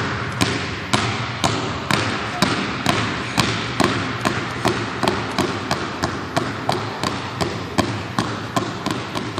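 Two basketballs dribbled together on a hardwood gym floor, a steady rhythm of about two bounces a second, each bounce ringing out in the large hall.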